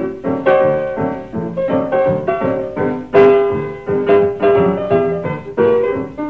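Background piano music: a continuous run of struck notes and chords, with a louder chord about three seconds in.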